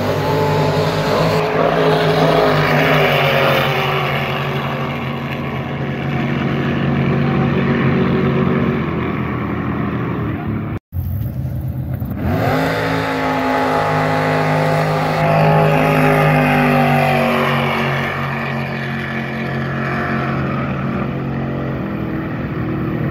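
Racing jet boat engines at full throttle: the engine note climbs as a boat accelerates, then holds high and steady. After a brief dropout about halfway through, another run starts with the note rising again, easing off near the end.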